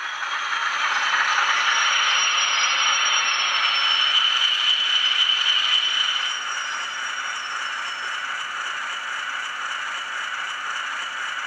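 Zimo DCC sound decoder playing a Class 40 diesel engine sound through the N gauge model's small built-in speaker: a rattling engine note with a steady high whistle over it. It is loud for about the first six seconds, then drops to a quieter idle as the locomotive comes to a stop.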